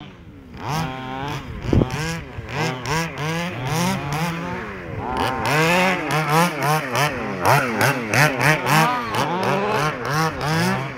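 Two-stroke petrol engine of a 1/5-scale RC baja buggy, revved up and down over and over in quick throttle blips, its pitch rising and falling every half second or so.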